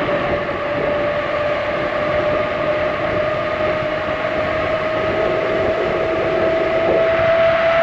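Riding noise from a tandem gravel bike: wind rushing over the microphone with the steady hum of tyres rolling on pavement. The hum's pitch rises slightly as the bike picks up speed.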